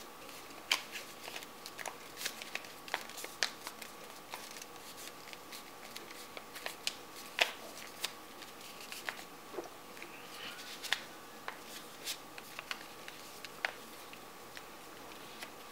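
Sheets of origami paper being folded and creased by hand: irregular crisp clicks and rustles of stiff paper, the sharpest snaps about a second in and near the middle. A steady faint high tone runs underneath.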